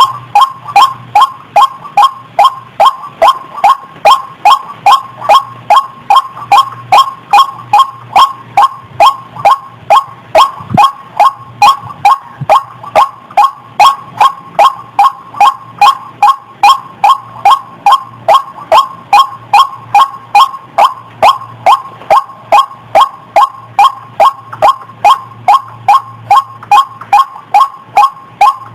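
White-breasted waterhen (ruak-ruak) calls, a female's short 'kwak' notes repeated steadily at about three a second: a looped lure call for trapping the birds.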